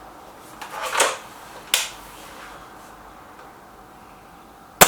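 Stoeger RX20 S2 Suppressor break-barrel air rifle being readied and fired: a scraping noise about a second in and a short click just after, then a sharp, loud shot near the end.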